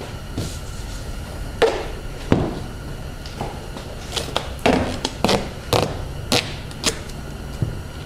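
Duct tape being pulled off the roll and pressed onto the car door to hold the window glass up: a run of about nine short, sharp rips and knocks spaced irregularly, starting about a second and a half in.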